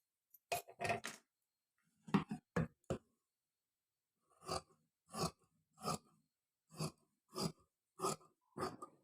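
Tailor's scissors cutting through dress fabric: a few quick snips, then a steady run of about ten crisp cuts, roughly one every two-thirds of a second.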